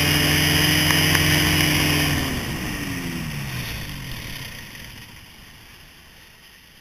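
Ultralight trike's engine running steadily, then falling in pitch after about two seconds and dying away, leaving faint wind and water noise.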